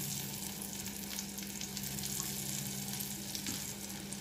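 Chicken roulades and garlic cloves frying in butter in a pan, a steady sizzle full of fine crackles, over a steady low hum.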